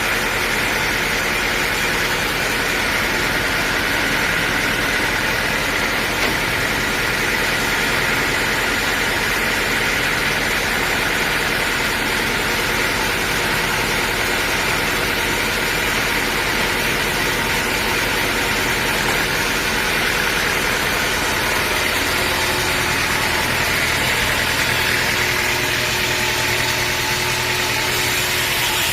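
Sawmill machinery running steadily, a loud, even mechanical sound with an unbroken high-pitched band above an engine hum.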